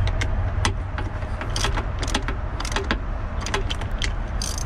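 Irregular sharp clicks and light clatter of hard plastic and metal being handled at the truck's battery terminals as the plastic terminal cover is fitted, over a steady low rumble.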